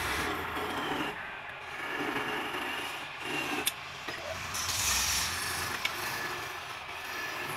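Hand-held chisel cutting a block of wood spinning on a lathe, an uneven scraping that comes and goes as the tool bites, with the lathe motor humming low underneath. A few sharp clicks sound through it.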